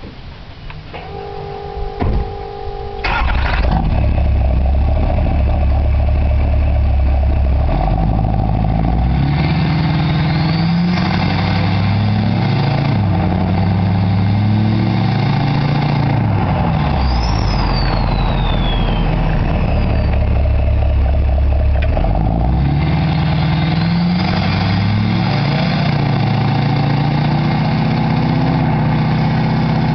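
A short steady two-note tone, then a 6.6 L LLY Duramax V8 turbo-diesel with a 4-inch straight-pipe exhaust cranks and starts about three seconds in. It runs loudly, with engine speed repeatedly rising and falling, and a thin turbo whistle drops in pitch about halfway through.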